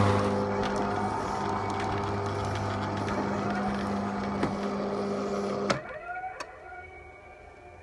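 Electric garage door opener motor running with a steady hum, cutting off with a clunk about six seconds in as the door stops. After it, faint repeating rising alert tones.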